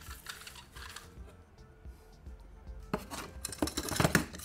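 A soft rustle in the first second as a toy combine is pushed over artificial grass. Then, about three seconds in, a hand rummages through a cardboard box of die-cast toy cars and the cars clatter and clink against each other, loudest near the end. Background music plays underneath.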